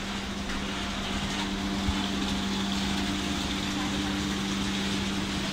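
Steady hum of a docked electric passenger ferry's onboard machinery, one low constant tone over an even wash of noise.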